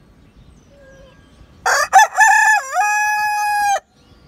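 Silkie–Easter Egger cross rooster crowing once, about two seconds long: a few broken opening notes, a dip in pitch, then a long held final note that cuts off sharply.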